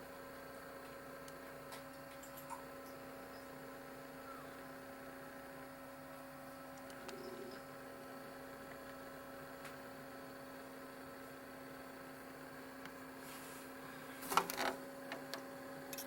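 A steady low hum with a faint higher tone above it, and a short cluster of clicks and knocks near the end.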